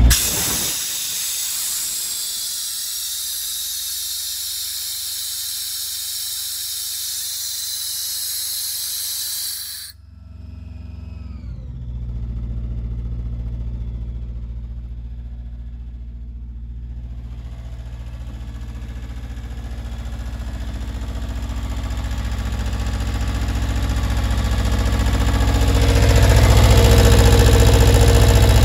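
Compressed air hissing from the outlet valve of an Atlas Copco XAS mobile screw compressor, cutting off abruptly about ten seconds in, with a few falling whistles just after. The compressor's Deutz F2L 2011 two-cylinder diesel engine is then heard running steadily, getting louder near the end.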